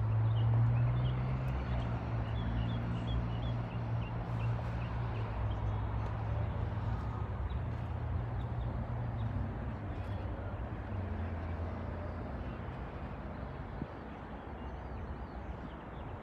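A low, steady motor hum that slowly fades, like a vehicle engine running. A few small bird chirps sound near the start.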